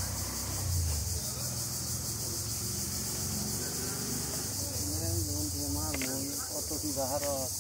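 Steady high-pitched chorus of insects, a continuous pulsing buzz.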